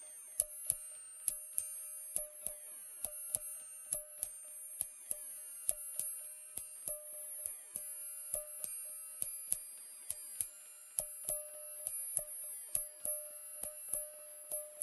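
Ultra-high-pitched synthesized tinnitus-relief tone: one steady, piercing electronic whistle, with fainter high tones cutting in and out just above and below it and a few brief dips in loudness.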